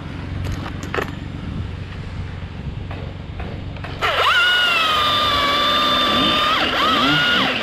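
Low steady rumble with a few knocks, then about four seconds in a battery chainsaw, the Husqvarna T540iXP, starts with a loud high whine that dips in pitch and recovers near the end as it cuts.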